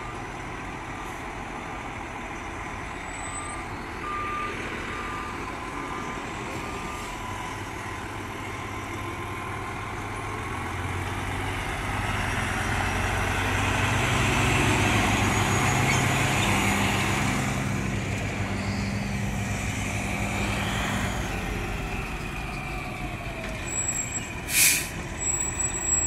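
Fire truck's diesel engine running as the rig pulls out and comes closer, growing louder to a peak about halfway through and then easing off. Reversing beeps sound in the first several seconds, and a short burst of air-brake hiss comes near the end.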